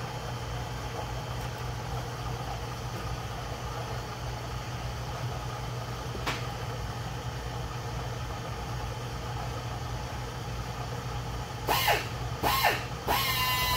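Inco Pinnacle Bridgeport-type vertical milling machine running steadily with its boring head spinning in a connecting rod's big-end bore. Near the end come two short squeals, then a steady high-pitched whine.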